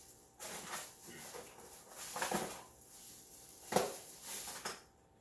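Rummaging through shopping items: rustling and handling noises in irregular bursts, with a sharp click a little under four seconds in.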